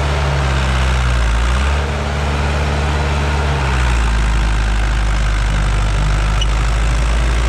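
Zetor Crystal 8011 tractor's diesel engine running steadily on a trial run, just put into second gear. Its note shifts about two seconds in and again about four seconds in.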